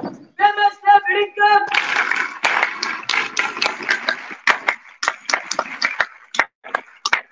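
A few short notes at one steady high pitch, then a crowd applauding after the speech. The applause starts dense about two seconds in and thins to scattered single claps near the end.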